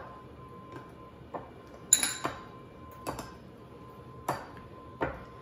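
Metal pastry cutter clinking against a glass mixing bowl while cutting cold butter into flour: about six irregular knocks, roughly one a second, the loudest about two seconds in with a short glassy ring.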